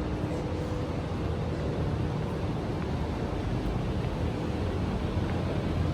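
Steady low rumble of city street noise, mostly traffic, with no sudden events.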